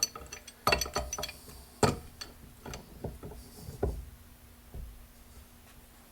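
Irregular metallic clinks and knocks of a hand tool being fitted to and worked on a mowing-deck spindle, about a dozen sharp strikes, the loudest a little under two seconds in.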